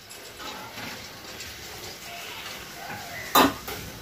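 Quiet kitchen handling noise, with one sharp knock of kitchenware about three and a half seconds in.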